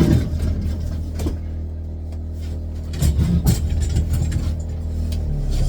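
A steady low machine hum, with a few knocks and clicks of handling. Near the end a second, higher-pitched machine sound starts up.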